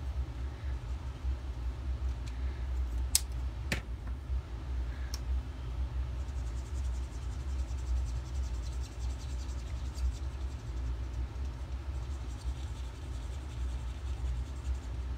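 A steady low hum or rumble throughout, with two sharp clicks about three and four seconds in. From about six seconds on, the faint rapid scratching of an alcohol marker's tip stroking over cardstock as a flower is coloured.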